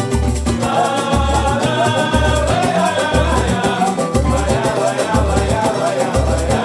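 Samba music without sung words: a deep drum beats about once a second under a melody, with light shaker percussion.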